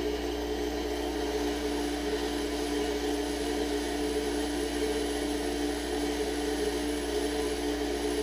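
Bench grinder running steadily while a high-speed steel tool bit is held against its wheel and ground to shape for a fly cutter: a steady motor hum under an even grinding hiss.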